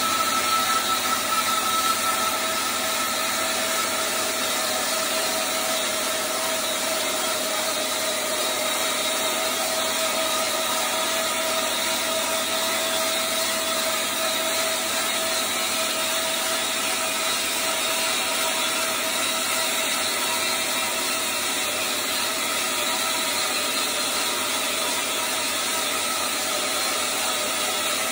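Reliant 16-inch wood bandsaw with a 3/4-inch blade resawing a spalted maple board: a steady sawing noise over the constant hum of the running saw. Slightly louder and rougher for the first couple of seconds, then even.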